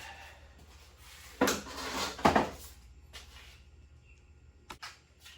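Metal clattering as tools or parts are handled and set down, with two loud clanks about a second and a half and two and a quarter seconds in, then a few light clicks near the end.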